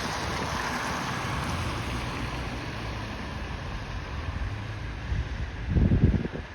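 Wind blowing across the microphone over a steady outdoor rumble, with a loud low buffet of wind about six seconds in.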